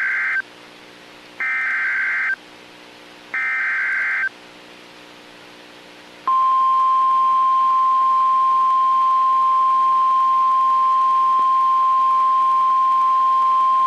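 NOAA Weather Radio alert header: the end of one short buzzing SAME data burst and two more, about two seconds apart. About six seconds in, the loud, steady single-pitch warning alarm tone begins. Together they announce that a new warning is being broadcast.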